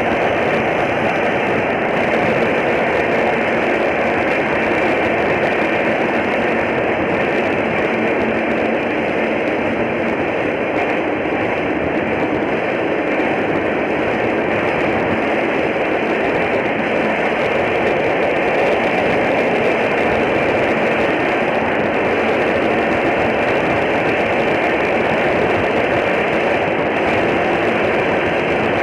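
Passenger train running through a railway tunnel: a loud, steady, unbroken rushing noise of wheels on the rails and air, with no clear clickety-clack rhythm.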